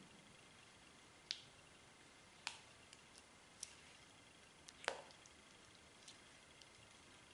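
Silicone spatula stirring a matcha mixture in a glass bowl: a few faint, sharp ticks where it knocks against the glass, irregularly spaced about a second apart, the loudest about five seconds in. Otherwise near silence with a faint steady hiss and a thin high whine.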